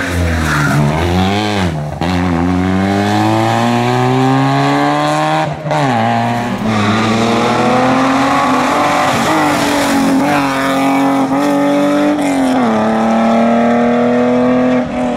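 Rally car engines at full throttle. The small Fiat Seicento's engine blips down and back up through a hairpin, then revs out. After that a BMW E36 accelerates hard, its pitch climbing steadily and dropping sharply at each upshift.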